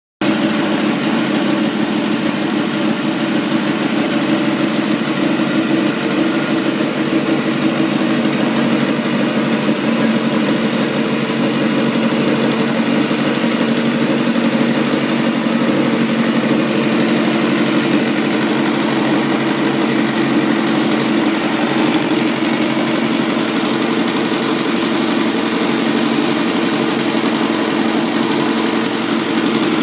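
Honda Jade 250's inline four-cylinder engine idling steadily through an aftermarket aluminium-silencer exhaust.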